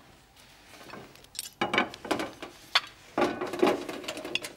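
Cutlery clinking and scraping against a ceramic plate: a string of sharp clicks and short scrapes as food is cut and taken up for a taste.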